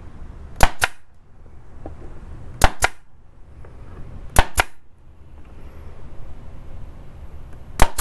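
Brad nailer firing four times, about every two seconds, each shot a sharp double snap as it drives a brad into wood.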